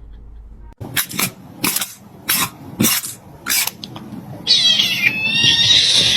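A string of six or so short, sharp noises, then a domestic cat's loud, high, wavering yowl for the last second and a half or so.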